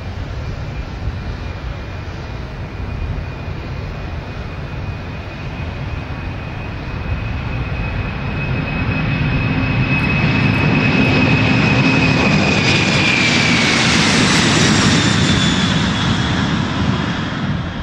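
Boeing 747 jet engines at takeoff power during the takeoff roll and lift-off, a steady jet roar with a high whine that grows louder about halfway through. The whine falls in pitch as the jet passes, and the sound cuts off suddenly near the end.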